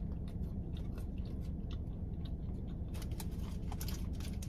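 A person chewing and biting food close to the microphone: a run of small wet clicks and crunches that comes thicker near the end, over a steady low rumble.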